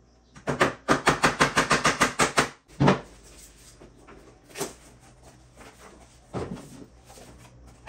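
Hammer knocking on wooden formwork for a concrete countertop: a fast run of about a dozen quick strikes in two seconds, then one heavier knock and a few scattered softer knocks later.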